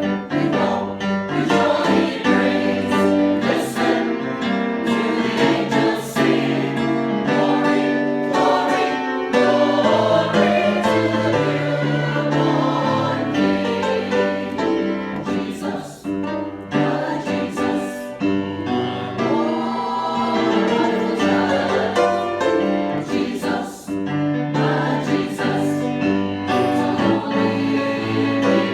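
A choir singing a hymn-like piece over instrumental accompaniment, with sustained low bass notes that shift every few seconds.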